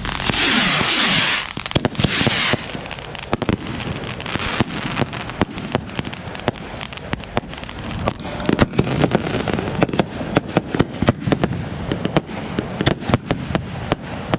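Consumer fireworks going off. There is a loud hissing burst near the start and another about two seconds in, then a long run of sharp pops and crackles that grows thickest from about eight seconds in.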